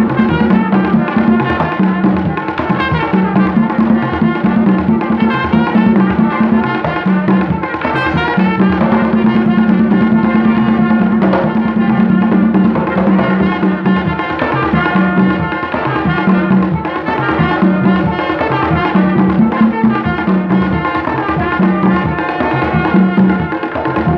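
Live Haitian folk music: several hand drums playing a steady rhythm together, with a trumpet playing over them.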